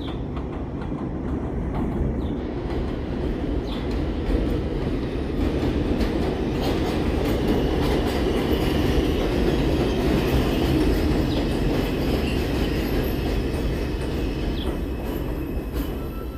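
An R142 subway train rolling into an elevated station. The rumble of its wheels on the rails grows louder as the cars pass close, then eases off. Scattered clicks come from the rail joints, and a faint steady high whine sounds in the middle.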